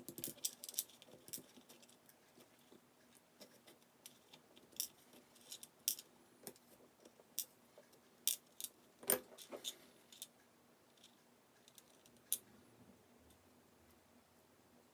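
Irregular small metallic clicks and taps as the springs and driver pins are worked out of a gutted 5-pin Goal S pin-tumbler lock. The loudest click comes about nine seconds in, and the clicking dies away after about twelve seconds.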